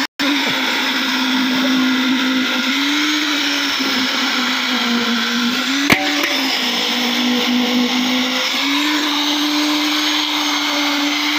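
Motor running steadily, a whining hum that sags and recovers slightly in pitch as if under changing load, with a single sharp click about halfway through.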